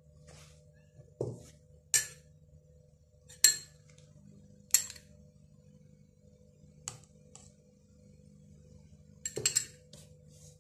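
Metal spoon clinking against glass bowls and a glass cup as chopped fruit is spooned out: single sharp clinks every second or two and a quick flurry of clinks near the end, with a couple of duller knocks among them.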